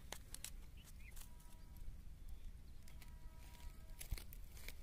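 Faint outdoor ambience: a steady low rumble with a few scattered sharp clicks and some faint, thin, short tones.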